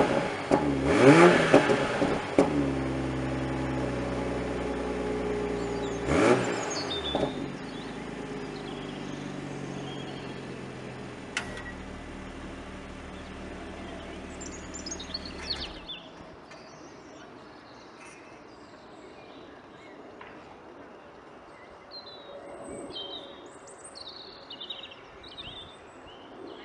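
Toyota GR Supra 3.0's turbocharged straight-six, exhaust in sports mode, blipped twice from idle with quick rises and falls in pitch about a second and six seconds in. Between the blips it idles, then the engine note stops about sixteen seconds in, leaving faint birdsong.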